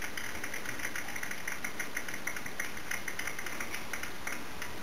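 Audience clapping: a quick, fairly even patter of claps that keeps going steadily.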